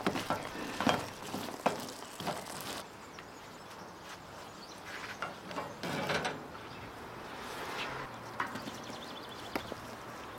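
Wooden spoon stirring walnuts frying in oil in a copper pan: a sizzle with sharp knocks of the spoon against the pan. The sizzle stops about three seconds in, and a few quieter scrapes of spoon and pan follow.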